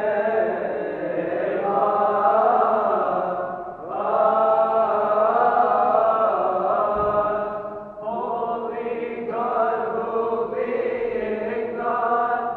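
A choir of Coptic Orthodox deacons chanting a hymn in unison, drawn out in long held notes. The phrases break briefly about four and eight seconds in.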